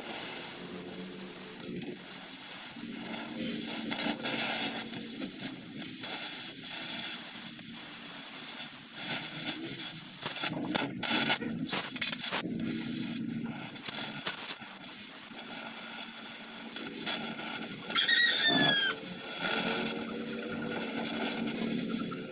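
Oxy-fuel gas torch hissing steadily as its flame heats the rusted sheet-steel floor of a tricycle sidecar, with a few sharp cracks about halfway through. A brief squeak gliding downward comes near the end.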